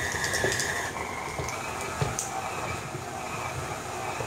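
Tilt-head stand mixer running, its motor whining steadily as it works chocolate chips into thick oatmeal cookie dough. The whine steps up a little in pitch about a second in, with a few light clicks.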